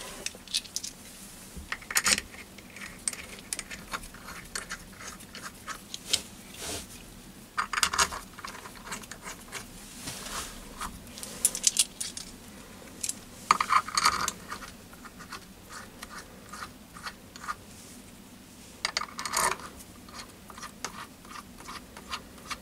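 Small stainless steel Allen cap screws clinking together in the hand and against the steel chuck as they are dropped into the backplate bolt holes, in scattered bursts of light metallic clicks and jingles.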